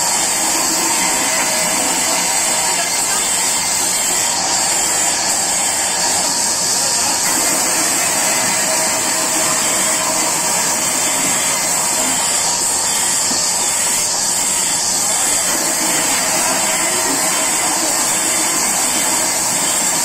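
A large sawmill band saw runs steadily while wooden planks are fed through it and ripped lengthwise, giving an even, loud hiss with a steady high whine.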